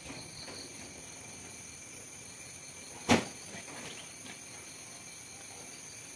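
One sharp thump about three seconds in, a person dropping off a hanging rope and landing, over a steady drone of insects.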